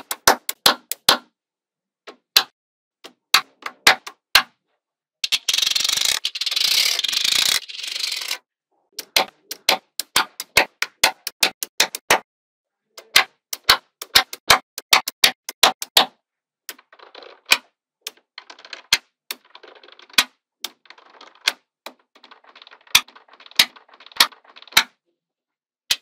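Small neodymium magnetic balls snapping into place in stacks, as sharp separate clicks in quick runs. About five to eight seconds in there is a longer grating rattle of balls shifting together. In the second half come softer, crackling clicks.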